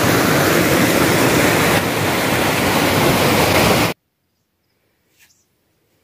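Muddy floodwater overflowing from a dam rushes fast over rocks in a narrow channel: a loud, steady rush of water. It cuts off abruptly about four seconds in, leaving near silence.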